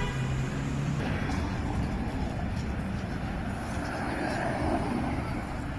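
Road traffic on a city street: car engines running and tyre noise. A steady engine hum during the first second stops as the sound changes.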